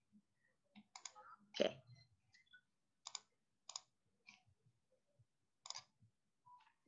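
Quiet, unevenly spaced clicks of a computer being operated, about half a dozen over several seconds, the loudest about a second and a half in.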